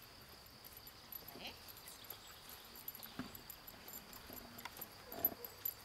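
Faint outdoor background: a steady high insect trill, with a few brief voice sounds and light clicks.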